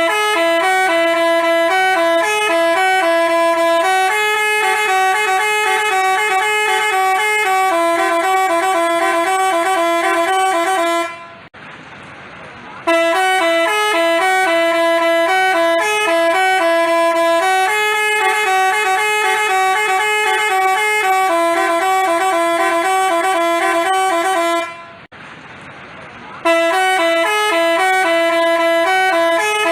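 Basuri telolet horn, a multi-trumpet musical bus air horn, playing a tune of steady, stepping blaring notes. The tune breaks off briefly twice, about eleven and twenty-five seconds in, and starts over each time.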